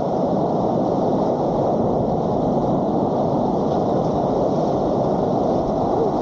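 Steady rushing of a whitewater river running at high water, a loud, even wash of noise.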